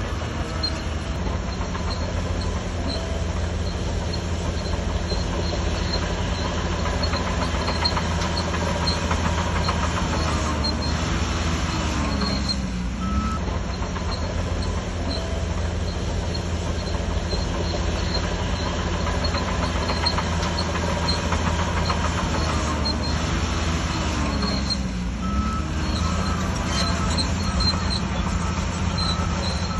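Shantui DH17C3 bulldozer's diesel engine running hard under load while pushing soil, its pitch dipping and recovering about twelve seconds in and again about twenty-five seconds in.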